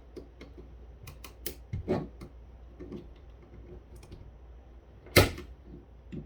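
Scattered plastic clicks and taps as the opened cordless phone handset and its parts are handled, with a louder knock about five seconds in.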